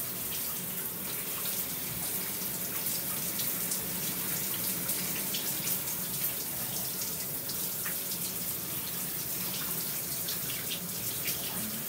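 Shower spray running steadily, water falling on a person and spattering on the tiled stall, with many small splashes.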